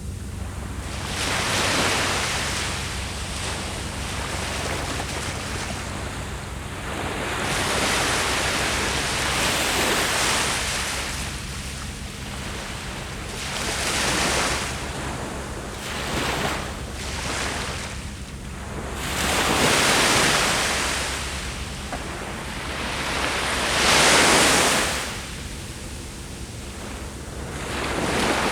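Sea waves breaking on the shore, a wash of surf that swells and fades every four to six seconds, over a low steady rumble.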